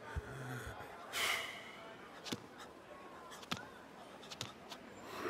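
Short breathy exhales: a strong one about a second in and another starting near the end, with a few faint clicks and taps between.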